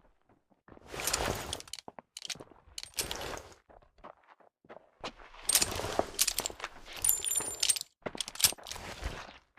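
Smith & Wesson Model 13 revolver being handled: four bursts of metallic clicking and rattling, the third with brief ringing metal tones.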